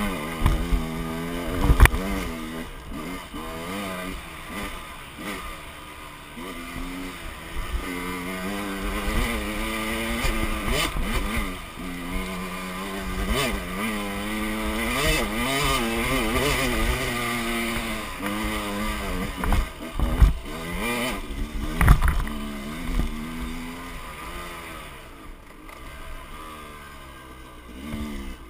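Dirt bike engine running on the move, its pitch rising and falling repeatedly as the throttle is opened and closed, with a few sharp knocks along the way. The engine falls quieter near the end.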